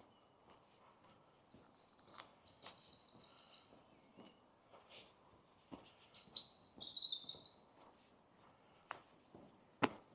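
A woodland songbird singing two short, fast trilled phrases, high-pitched, a few seconds apart, over faint outdoor background, with scattered footstep-like clicks and a sharp knock near the end.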